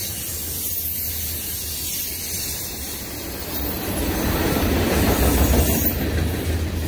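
Freight cars (tank cars and gondolas) rolling past: a steady rumble of steel wheels on the rails, swelling about four seconds in.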